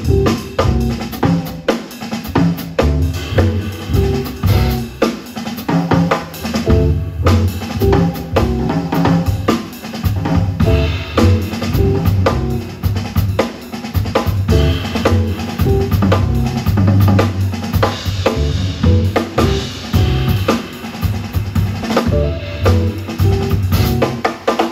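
Jazz trio playing live, with the drum kit most prominent: snare, bass drum and cymbals over an upright double bass line, and guitar chords and lines on top.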